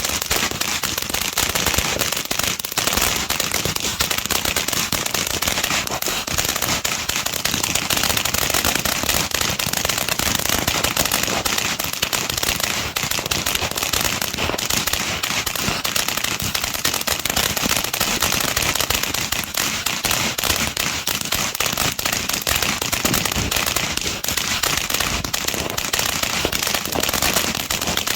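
Fireworks going off in a dense, unbroken run of rapid cracks and pops, crackling continuously with no pause.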